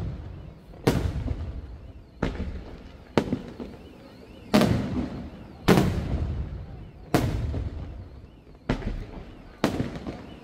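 Aerial firework shells bursting in the sky one after another: about eight loud bangs at irregular intervals of a second or so, each followed by a rolling echo that fades away.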